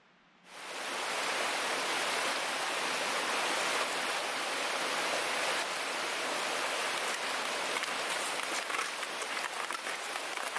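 Steady rushing water noise, an even hiss that starts abruptly about half a second in.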